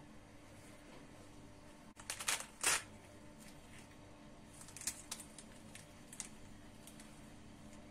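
A scored pomegranate torn open by hand, the rind crackling and splitting in a few quick tears about two seconds in, then lighter crackles as the sections are pulled further apart.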